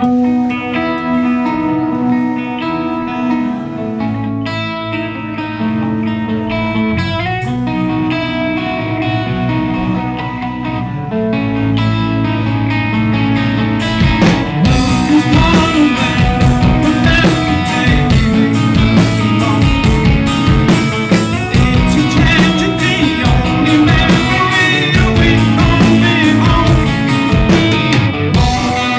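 Live rock band playing: a guitar-led opening of held notes, then drums and the full band come in about halfway and the music gets louder.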